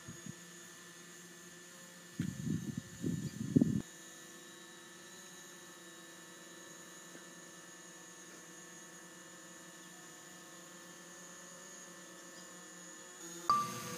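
Faint steady hum of a quadcopter drone's motors, made of several fixed tones that hold an even pitch. A sharp click sounds near the end.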